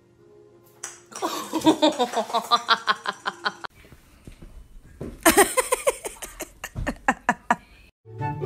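A small child laughing in two high-pitched bouts of quick ha-ha pulses, with music coming in near the end.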